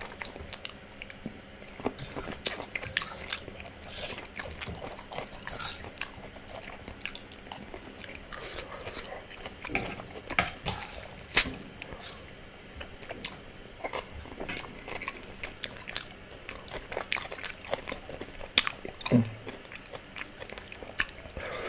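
Close-miked eating: chewing and wet mouth sounds on spaghetti and fried plantains, with a steel fork clicking and scraping on the plate as forkfuls are picked up. A single sharp click about eleven seconds in is the loudest sound.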